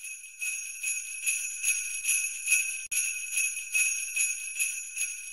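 Sleigh bells shaken in a steady rhythm, about two and a half shakes a second, fading near the end.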